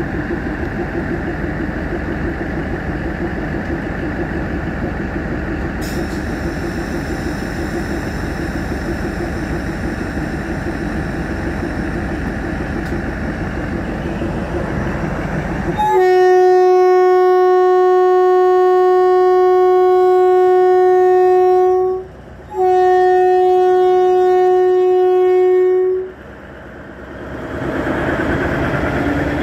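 Diesel power car of an Indian Railways DEMU train, its engine running steadily. Then the train horn sounds on one steady note in two long blasts, the first about six seconds and the second about three and a half. The engine noise swells again near the end as the train departs.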